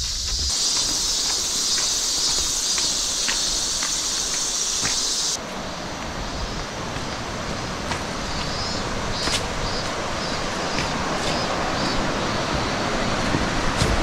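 Insects buzzing in a steady high chorus, with footsteps on a paved path. About five seconds in the chorus suddenly drops away and a steady rushing noise takes over.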